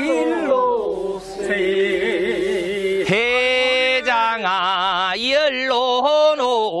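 Men's voices singing a Korean farmers' rice-planting work song in long, wavering phrases. A short break comes about three seconds in, before a new phrase begins.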